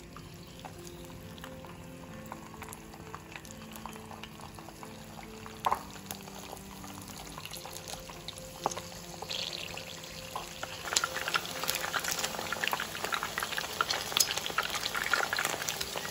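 Chicken pieces frying in hot oil in a frying pan. The sizzle and crackle grow louder and busier from about ten seconds in, and two sharp clicks come near the middle.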